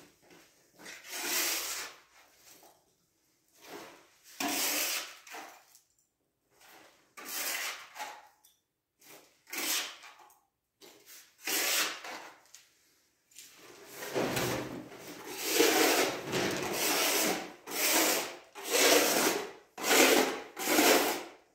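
Irregular rubbing and scraping noises, each a second or less, sparse at first and coming close together in the last third.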